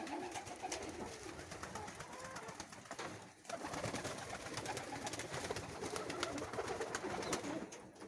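A flock of fancy pigeons cooing together in an aviary, many overlapping calls with scattered sharp taps and clicks among them and a brief lull a little past three seconds in.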